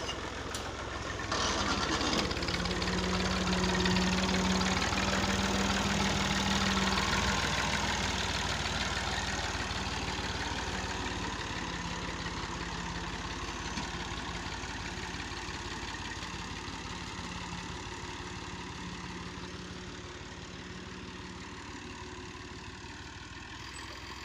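Farm tractor's diesel engine running under load as it drags a rear levelling blade over loose dirt, with a steady hum. It gets louder about a second in, then slowly fades as the tractor moves away.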